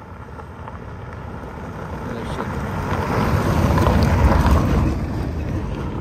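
A car towing a pop-top camper trailer drives past on a loose gravel road. Its tyres on the gravel and its engine grow louder to a peak about four seconds in, then fade as it moves away.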